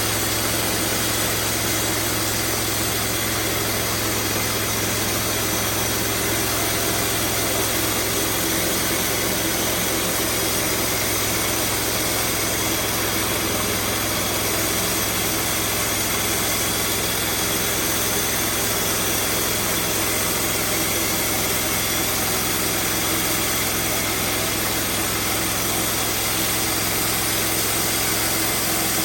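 Band sawmill running with a steady, unchanging drone.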